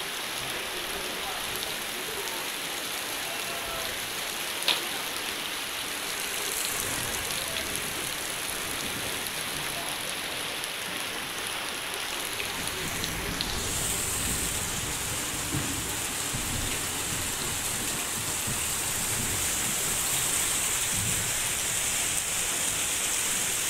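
Heavy rain falling steadily, with one sharp knock about five seconds in and a deeper rumble joining about halfway through.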